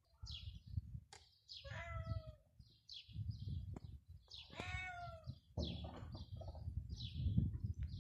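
A cat meowing twice, once about two seconds in and again about halfway through, with small birds chirping repeatedly and a low rumble underneath.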